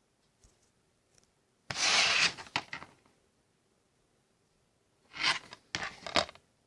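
Plastic wrapping on a DVD case being torn and rubbed in two bouts of crinkly tearing, the first a couple of seconds in, the second near the end with a few sharper rips.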